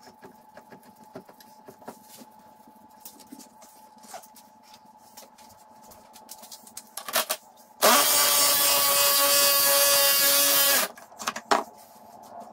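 Small clicks and knocks of handling, then an electric power tool's motor runs loud and steady for about three seconds and winds down as it stops, followed by a couple of knocks.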